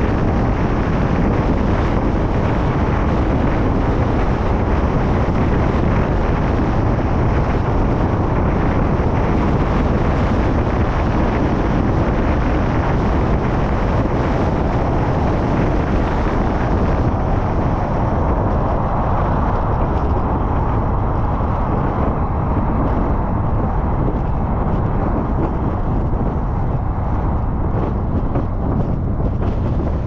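Steady road and wind noise from a car driving on a highway, with wind buffeting the microphone. The hiss turns duller a little past halfway.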